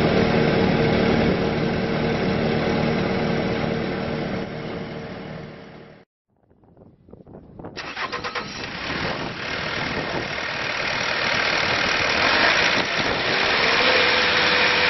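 Bobcat S510 skid steer's diesel engine running, then dying away to silence about six seconds in; after a short gap it cranks, catches and runs again, getting louder toward the end.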